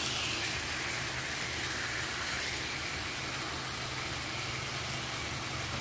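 Pork bacon strips sizzling steadily in a nonstick frying pan, with a low steady hum underneath.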